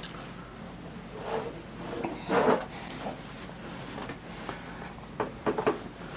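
Room tone with a faint low hum and a few soft knocks and rustles, like something being handled; no Morse code tone is sounding.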